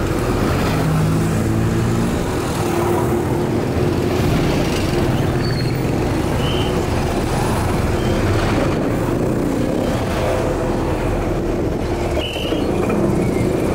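Steady engine and traffic noise heard from inside a bus riding with open windows, with motorcycle tricycles running close alongside.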